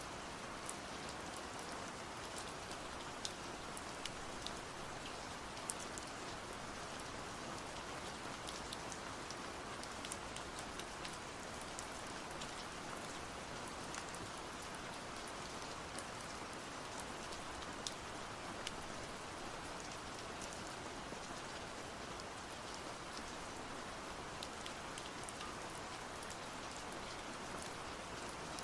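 Steady rain falling on a surface, with individual drops ticking sharply over an even hiss.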